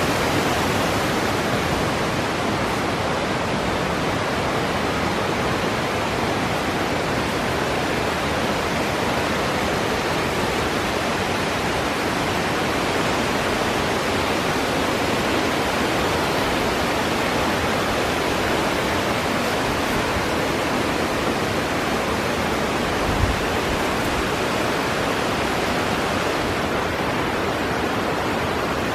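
Steady rushing of water in the Minoo gorge, running high after a typhoon. There is one brief low thump about three-quarters of the way through.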